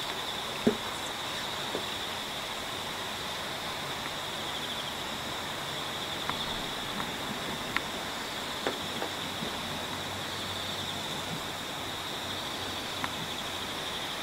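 Steady high-pitched insect chirring over a constant hiss, with a few faint, brief clicks scattered through it.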